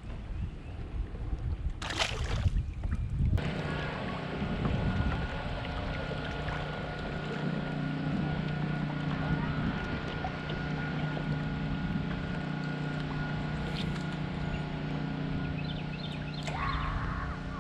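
A short loud rustle or knock about two seconds in, then a boat motor starts up and runs with a steady, unchanging hum.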